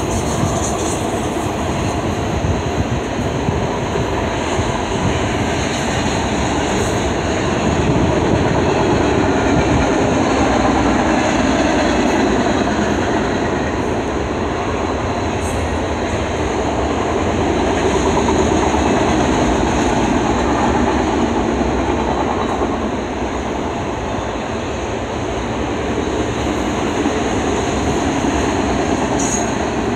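Double-stack intermodal train's container well cars rolling past at speed: a steady rumble and rattle of steel wheels on rail that swells and eases, with a couple of brief high squeaks.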